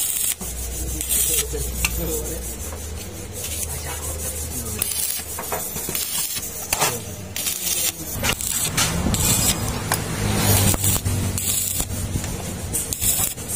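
Stick (arc) welding on a steel exhaust pipe: the electrode crackles and sizzles in several short bursts that start and stop as tack welds join an extension pipe onto the pipe. A low hum runs under the first few seconds.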